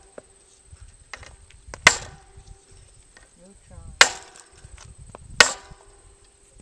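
Hard, sharp blows on a bent Campagnolo bicycle wheel, struck to force it back into shape: three loud strikes about two seconds apart, each ringing briefly, with fainter knocks between them.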